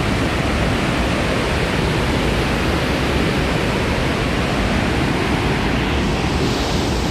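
Victoria Falls running in a steady, loud rush of falling water and spray: a wall of sound with no let-up.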